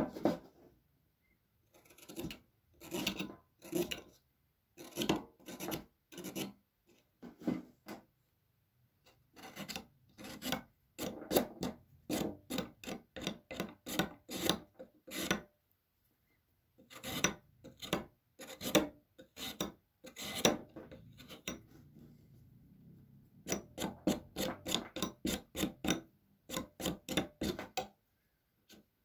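Raw carrot being pushed across a fixed utility-knife blade, cutting off rounds: a run of short cutting strokes in bursts with brief pauses, quickest near the end.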